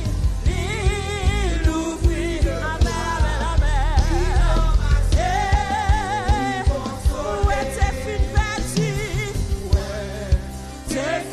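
A woman singing a gospel song into a microphone, her voice wavering with heavy vibrato, over a live band with drums and bass.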